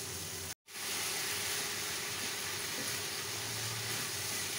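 Soaked rice sizzling steadily in hot ghee in a nonstick pan as it is stirred with a wooden spatula. The sound drops out for a split second just over half a second in.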